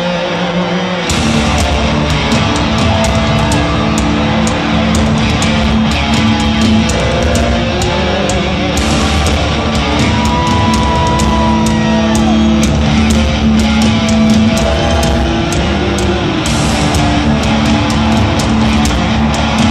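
Heavy metal band playing live through an arena sound system, heard from the crowd: a guitar alone at first, then drums with crashing cymbals and the full band come in about a second in and carry on at full volume.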